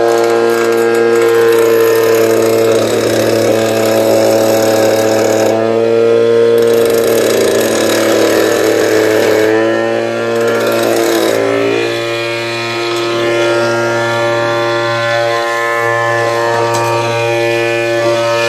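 Homemade cutter, a metal cutting wheel spun by a 775 DC motor, running with a steady high multi-tone whine and a grinding hiss that drops out twice briefly. About two-thirds through, the pitch sags and then settles again.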